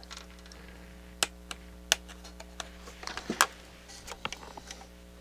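Scattered sharp clicks and light knocks of metal parts being handled as the balance potentiometer is pulled out of a cassette deck, over a steady low hum. Three clicks stand out, about a second, two seconds and three and a half seconds in.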